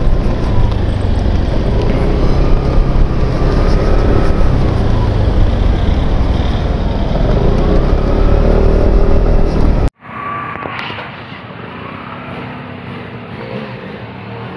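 SYM Husky 150cc scooter under way, its engine note rising and falling beneath heavy wind rumble on the microphone. About ten seconds in, the sound cuts abruptly to quieter street traffic as the scooter rides past.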